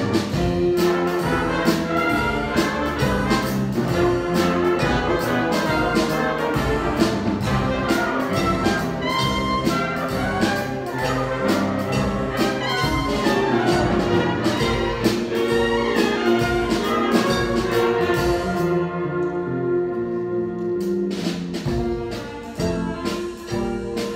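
Stage band (jazz big band) playing a blues: saxophones, trumpets and trombones over a steady drum beat, with guitar, bass and keyboard. About nineteen seconds in, the drums drop out for a couple of seconds under held horn chords, then come back in.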